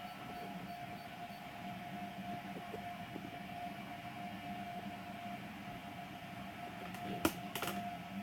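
Small desktop 3D printer running a print: a faint, steady hum with a constant whine, and a couple of brief clicks near the end.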